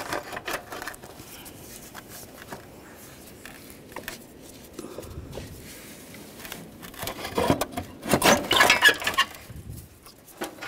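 Light clicks and knocks of a metal bumper mounting bracket being handled. From about seven and a half seconds in to about nine and a half, there is a louder burst of metal scraping and rattling as the bracket is worked loose to slide out of the bumper.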